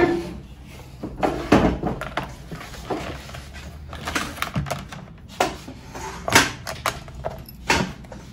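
Irregular clicks and light knocks of electric-bike wires, connectors and parts being handled, the loudest about six and a half seconds in.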